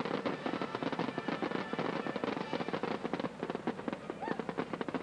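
Daytime fireworks crackling: a dense, continuous run of rapid pops and snaps.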